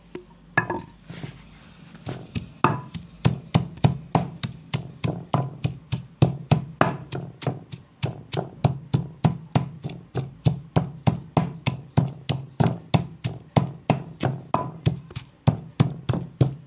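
Pestle pounding chopped tomatoes, green chillies and coriander in a mortar to make green chutney: steady dull thuds, a few at first, then about three a second.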